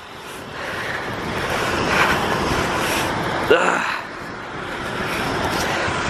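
Strong storm wind blowing across the microphone as a steady rushing noise, building over the first second.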